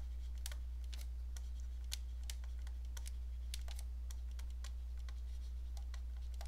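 Stylus tapping and clicking on a tablet screen while handwriting: light, irregular clicks, a few a second, over a steady low electrical hum.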